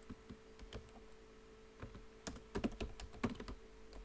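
Typing on a computer keyboard: a few scattered keystrokes, then a quicker run of them from about two seconds in.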